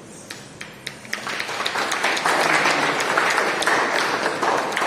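Audience applauding: a few scattered claps that build, about a second in, into steady applause.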